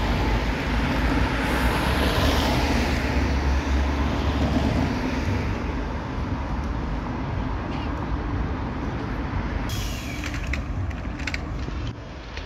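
City traffic noise and rumble as a vintage wooden-bodied S-type tram approaches on its rails; the low rumble is strongest in the first half and fades. A run of sharp clicks and rattles comes near the end.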